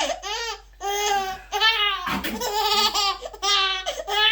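A person laughing hard in high-pitched bouts, about five in a row.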